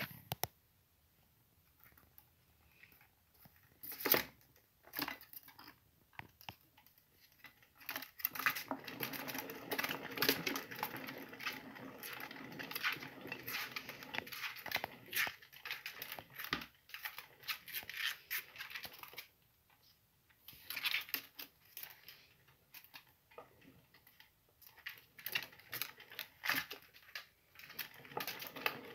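Plastic exercise wheel spinning and rattling as a sugar glider runs in it, with the light clicks of its claws. Scattered clicks at first, then a steady rattle for about ten seconds, a short pause, and shorter runs of rattling and clicks near the end.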